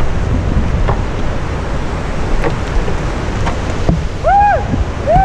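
Steady rushing noise of a whitewater river, with rumbling wind on the microphone and a few faint light knocks. Near the end come two short high tones with a whistle-like quality, each rising and then falling.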